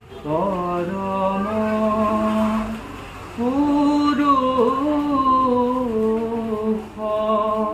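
One voice singing long, held notes that glide slowly, in three phrases with short breaks between, with no drums: the song that Sattriya dance practice is done to.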